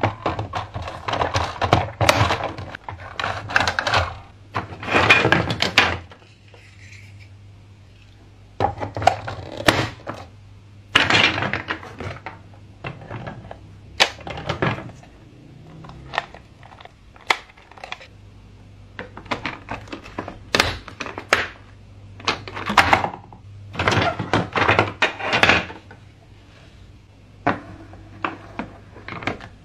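Hard plastic toy playset and track pieces being handled and fitted together: clusters of clicks, clacks and knocks separated by short pauses.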